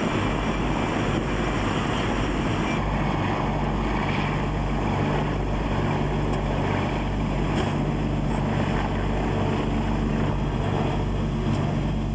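Steady engine rumble with a low hum over outdoor noise. The sound changes about three seconds in, where the hum grows stronger.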